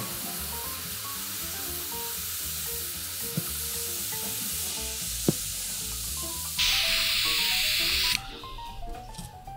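Handheld kitchen blowtorch hissing steadily as its flame caramelises sugar on banana slices. The hiss grows louder for a second or two, then cuts off near the end. Soft background music under it.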